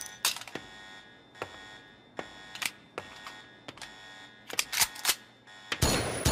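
A pair of Beretta 92FS pistols being reloaded: an empty magazine clatters onto a metal deck, then a series of sharp metallic clicks and clacks as fresh magazines are seated and the slides go home. Loud gunfire starts near the end.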